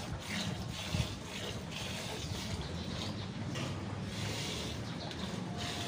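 Buffalo being hand-milked: milk squirting into a steel pail in a steady rhythm of about two squirts a second, over a background hiss of rain.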